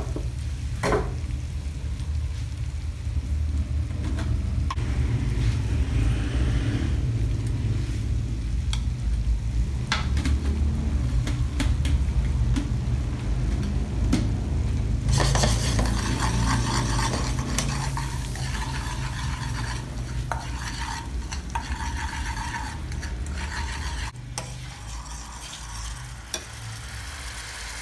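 Butter sauce sizzling and bubbling in a stainless steel frying pan, with a few clicks and scrapes of a metal ladle stirring against the pan. The sizzle grows louder about halfway through, over a steady low rumble that drops away near the end.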